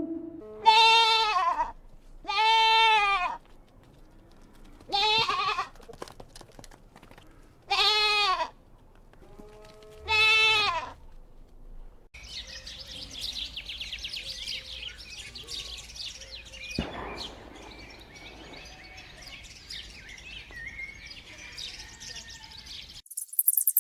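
Five separate bleats from a goat or sheep, each about a second long and rising then falling in pitch. About 12 s in they give way to dense, high chattering with many quick ticks, which stops about a second before the end.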